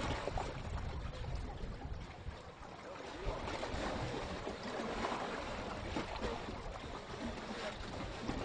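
Steady seaside wash of wind and water, with a low rumble that rises and falls.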